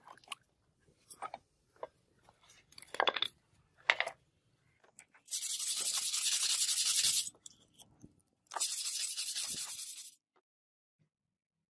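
A brush scrubbing the rusted steel sword blade in two steady spells, about two seconds and then a second and a half, working off rust loosened by the soak. Before that, a few short knocks as the wet blade is handled in its plastic tray.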